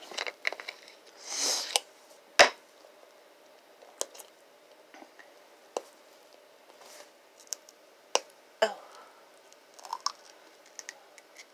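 Plastic cap of a small Crayola washable paint bottle being twisted and worked open by hand: scattered light clicks and scrapes, with a short rustle about a second and a half in and the sharpest click about two and a half seconds in.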